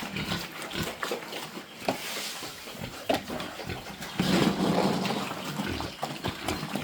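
Pigs in a pen grunting and moving about, with scattered knocks. The loudest stretch, a low, noisy grunting sound, comes about four seconds in and lasts nearly two seconds.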